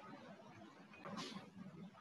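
Faint room noise from an open microphone, with a soft, brief hiss about a second in.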